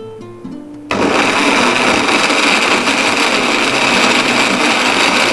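Mecoo personal tumbler blender switched on about a second in, then running at a steady high whir as it purées chunks of fresh tomato. Soft acoustic guitar music plays before it starts.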